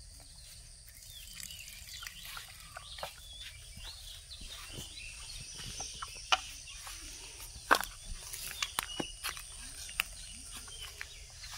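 Quiet rural outdoor ambience: a steady high insect drone with scattered bird chirps, broken by a few sharp clicks and knocks, the loudest about six and eight seconds in.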